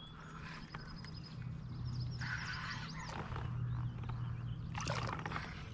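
Water splashing as a hooked northern pike is played beside a kayak, with two louder splashes, about two seconds in and near the end, over a steady low hum.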